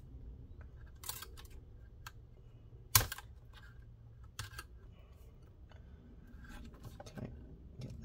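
Scattered clicks and scrapes of a screwdriver tip prying at the clips inside a hard-drive enclosure, with one sharp, loud click about three seconds in.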